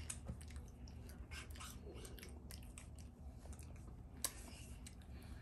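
Faint, irregular clicks and smacks of people chewing ice cream sandwiches, several small ticks a second, with one sharper click about four seconds in.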